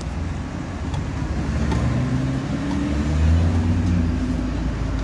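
Road traffic: a motor vehicle's engine running close by, a low rumble that grows louder about three seconds in.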